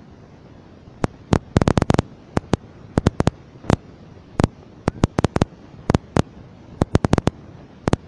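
A quick, irregular run of sharp cracks or pops over a low steady hiss. They start about a second in, some single and some in tight clusters of several.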